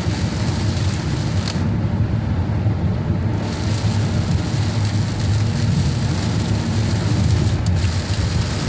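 Steady road noise of a car driving on a rain-wet expressway, heard from inside the cabin: a low tyre rumble with a hiss of rain and spray.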